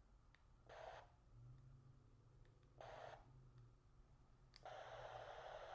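Yaesu FT-60 handheld radio's speaker giving faint static as its channel knob is clicked through the NOAA weather channels: two short bursts of hiss, then after a click a steady hiss that keeps going.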